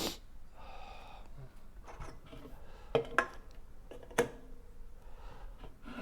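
A few sharp knocks and taps of drink containers being handled and set down on a tabletop, the loudest a close pair about three seconds in and another a second later.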